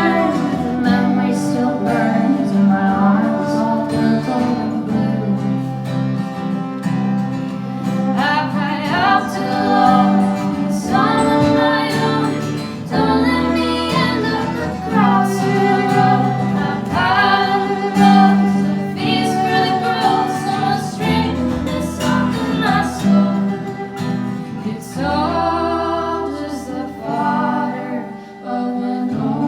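Folk band playing live: several voices singing in harmony over a plucked and strummed acoustic guitar.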